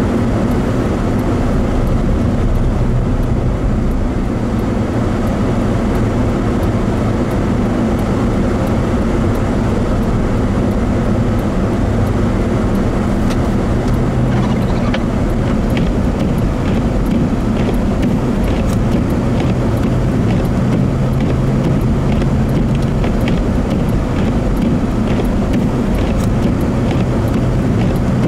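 Steady engine and road noise heard from inside a vehicle's cabin while driving on a snow-covered highway: a continuous low drone. From about halfway through, faint light ticks sound over it.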